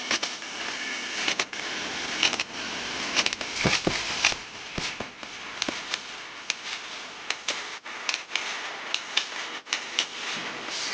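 Irregular sharp clicks and light knocks, several a second at times, over a steady hiss.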